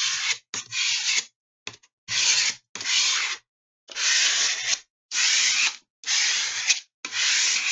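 A ruler rubbed in repeated sweeping strokes across a cover sheet of paper laid over freshly glued rice paper, pressing out air bubbles and flattening it onto the drawing paper beneath. It is a papery scraping, about eight strokes of under a second each with short pauses between.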